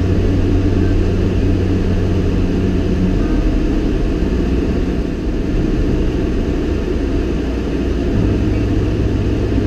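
A vehicle engine running steadily while driving slowly on a snowy road: a continuous low hum whose pitch shifts slightly about eight seconds in.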